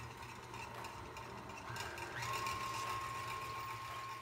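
KitchenAid stand mixer running steadily, beating heavy whipping cream in its stainless steel bowl, with a thin whine coming in about halfway through.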